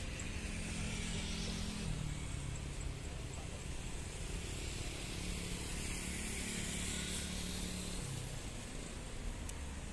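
Distant jet engines of a Boeing 777-300ER running as it taxis onto the runway for take-off: a steady low rumble with a hiss above it and a faint low hum.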